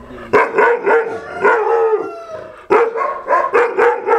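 Rajapalayam dog barking loudly in a rapid volley of short barks, with a brief pause a little past the middle.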